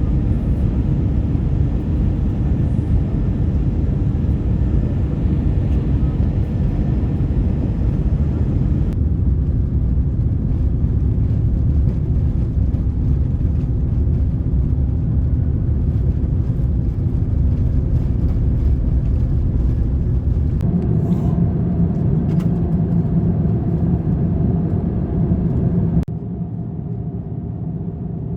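Airliner cabin noise: a steady, deep rumble of engines and airflow. A steady hum joins it about twenty seconds in, and the whole sound drops a little in level near the end.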